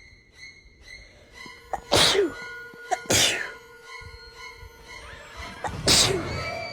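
A person sneezing three times in a sneezing fit: two sneezes about a second apart, then a third some three seconds later.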